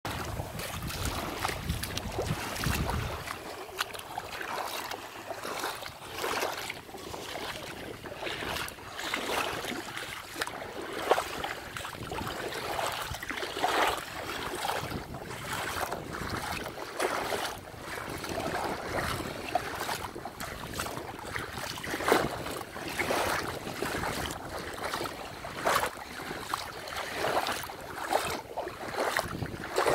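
Bare feet splashing through shallow seawater at the water's edge, a slosh with each step over the wash of small waves. A low wind rumble on the microphone in the first three seconds.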